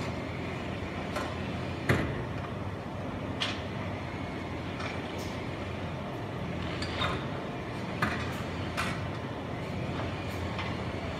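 Heavy diesel construction machinery running steadily, with sharp metallic clanks every second or two, the loudest about two seconds in.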